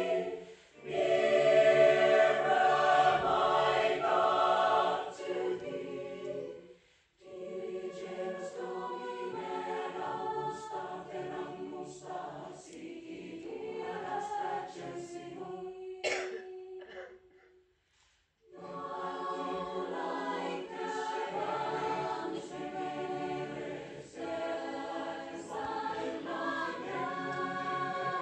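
Mixed choir singing, with a short break about a quarter of the way in and a full pause a little past halfway before the voices come back in. A short sharp sound cuts in over a held low note just before that pause.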